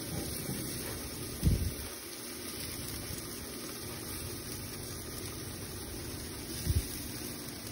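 Jerk chicken pieces sizzling on a gas grill, a steady hiss, broken by two short low thumps about a second and a half in and again near the end.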